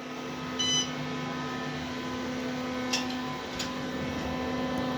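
A single short electronic beep from an Otis elevator's fixtures, several high tones at once, about half a second in, over a steady hum inside the elevator car, with a couple of faint clicks midway.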